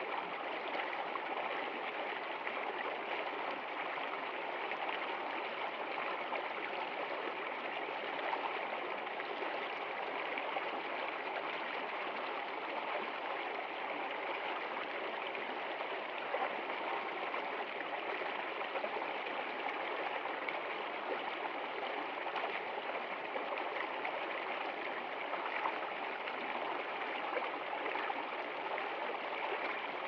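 Shallow stream running over a low rocky step in a small cascade: a steady rush of flowing water.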